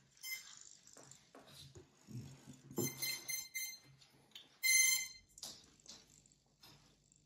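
Short electronic beeps from the brushless propeller motors' speed controllers after the battery is connected, the clearest about three and five seconds in, among light clicks of plastic parts and wires being handled.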